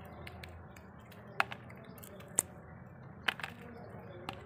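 Dried pasilla chiles being torn into pieces by hand and cleaned of seeds: a few sharp, crisp crackles and ticks, about four, spaced roughly a second apart.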